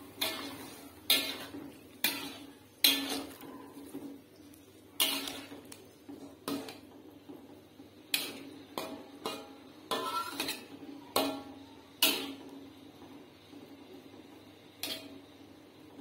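Metal spatula clanking and scraping against a metal wok while stir-frying chopped taro stems in a little sauce. The strokes come irregularly, about one a second, each a sharp clank that quickly fades, and they thin out after about twelve seconds with one last clank near the end.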